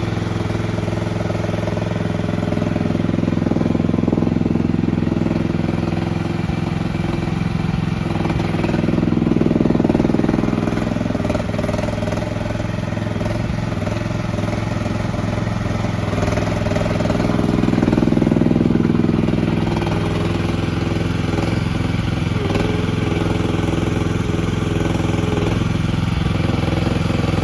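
MIVA VA16S mini-excavator engine running at a steady speed while the machine is driven around, swelling louder twice, about ten and eighteen seconds in.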